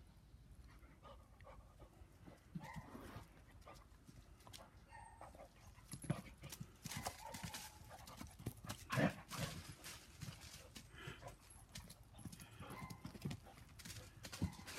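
Gordon Setter puppy running, its paws thudding irregularly, the footfalls heaviest and loudest in the middle stretch. A few short higher-pitched sounds come in between.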